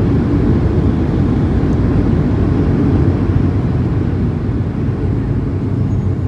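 Cabin noise of a Boeing 737-700 on the ground just after landing: a steady low rumble of the jet engines and airframe, easing slightly about two thirds of the way through.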